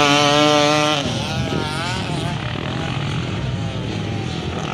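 A motocross dirt bike races past at high revs, its loud, steady engine note ending abruptly about a second in. Fainter dirt-bike engines then rev up and down further along the track.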